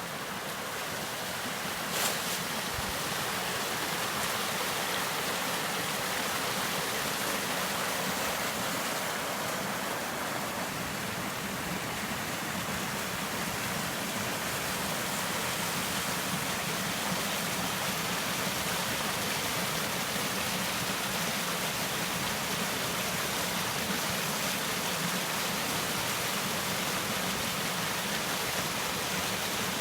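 Steady rush of flowing water in a creek, growing louder over the first few seconds, with a single short knock about two seconds in.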